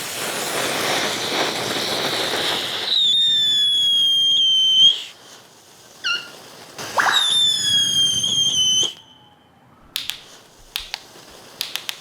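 Small ground fireworks going off: a loud spraying hiss, then two high whistles of about two seconds each that sag slightly in pitch, then a scatter of sharp crackling pops near the end.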